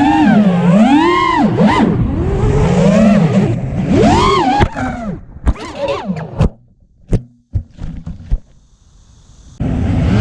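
A 5-inch FPV quadcopter's T-Motor V2208 brushless motors whine, the pitch rising and falling with the throttle. About five seconds in, this breaks into a run of sharp knocks and clatter, the sound of a crash, and the motors fall silent for a few seconds. Near the end they spin up again.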